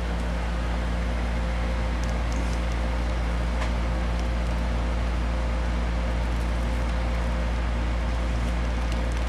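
Steady low mechanical hum with a constant tone in it, like a fan or air conditioner running, with a few faint ticks.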